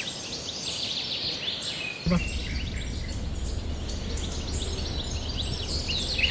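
Birds chirping across the fields, many short overlapping calls. About two seconds in, a steady low rumble starts and carries on underneath.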